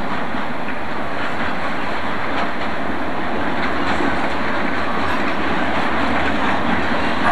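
A coupled pair of SNCB series 71 diesel shunting locomotives with ABC engines running past with wagons, a steady rumble of engines and rolling wheels with faint clicks as the wheels cross rail joints and points.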